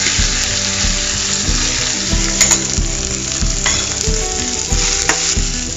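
Chopped onions sizzling as they fry in hot oil in a stainless steel pan, with a steel spoon clicking against the pan a few times.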